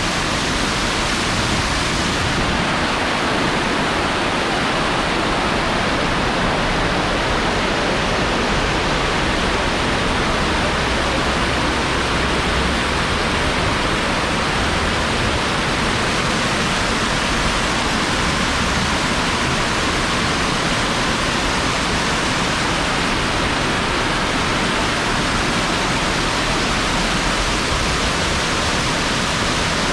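Waterfall running: a loud, constant, even rush of falling water that does not change.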